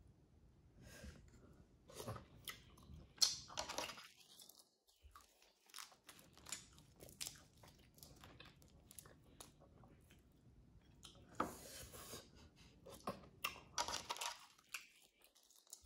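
Boiled crawfish shells being cracked and peeled apart by hand, with crisp shell snaps and tearing, mixed with close chewing. The crunching comes in clusters, about two to four seconds in and again near the end.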